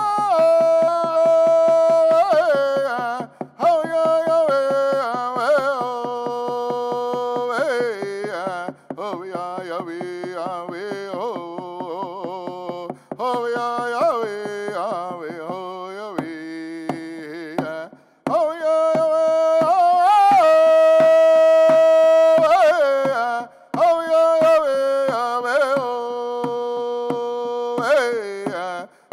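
A man singing a slow-style Haudenosaunee smoke dance song in long held notes that step down in pitch phrase by phrase, with brief breaths between phrases, over a steady beat on a hand drum struck with a stick.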